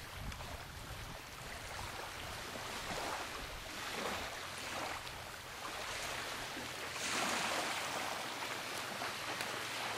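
Small waves washing on a driftwood-strewn shore, mixed with wind, rising and falling in gentle swells, with a louder stretch about seven seconds in.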